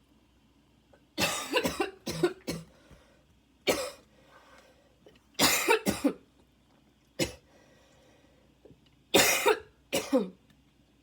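A woman's harsh, barking coughs in a coughing fit, coming in bouts of one to four with short pauses between. She describes the fit as one that left her badly needing her inhaler.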